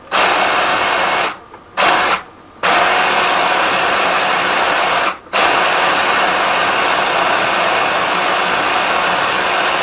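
Drill-driven Flexshaft drain cleaner spinning its cable inside a blocked sink drain pipe: a steady motor whine that stops briefly three times, at about one and a half, two and a half and five seconds in.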